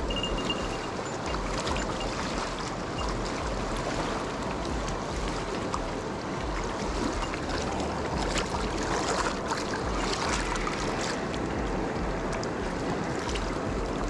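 Steady rush of a mountain river's flowing water.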